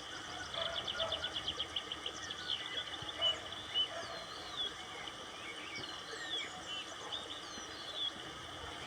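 Several wild birds singing and calling. A fast, high trill starts about half a second in and lasts over a second, then scattered chirps and short whistles sliding up and down follow.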